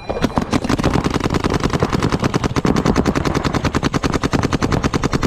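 Paintball marker firing rapid streams of shots, more than ten sharp pops a second without a break.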